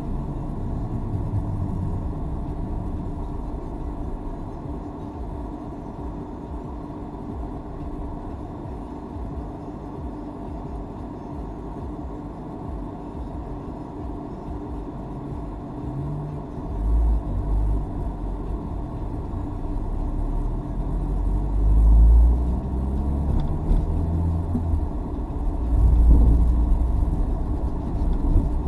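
Car driving, heard from inside the cabin: a steady low rumble of engine and road noise. From about 17 seconds in, heavier low rumbling surges come and go, and the engine note rises as the car speeds up.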